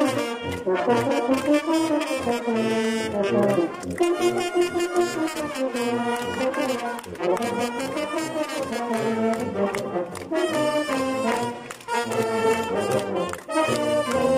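Bersaglieri fanfare brass band playing a march, loud and close at hand, with the horns' melody changing note continually.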